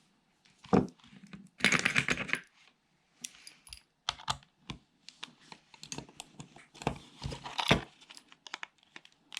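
Plastic clicks, snaps and scraping from a cordless phone handset's plastic casing being prised apart by hand as its clips pop, with a louder stretch of scraping crackle about two seconds in.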